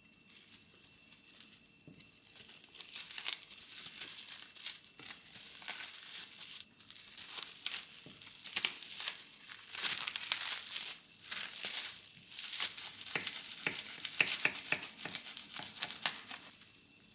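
Packaging being handled and unwrapped: irregular crinkling and rustling with sharp crackles and tearing sounds, starting about two seconds in and stopping near the end.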